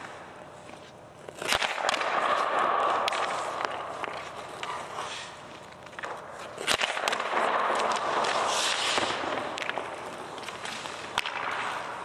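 Hockey pucks shot at a goalie: a sharp crack of the stick striking the puck three times, about five seconds apart, with smaller clicks around them. Each crack is followed by skate blades scraping across the ice.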